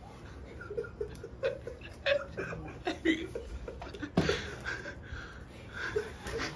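Several people laughing and chuckling, with short puffs of breath as birthday candles are blown at, the strongest puff about four seconds in.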